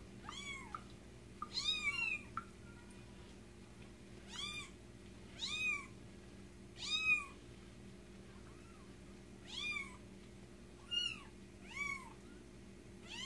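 A young kitten mewing: short, high-pitched cries that rise and fall, about one a second, the distressed calls of a kitten being bathed.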